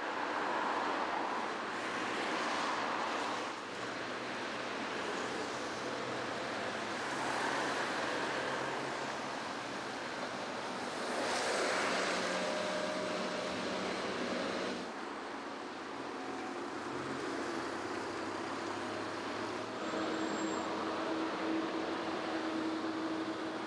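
City road traffic: a steady wash of car and van engine and tyre noise, swelling as vehicles pass by, with the loudest pass about halfway through.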